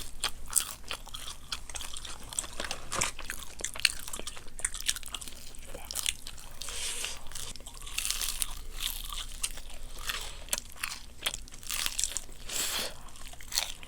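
Crispy honey-glazed fried chicken being bitten and chewed close to the microphone, with rapid, irregular sharp crunches throughout.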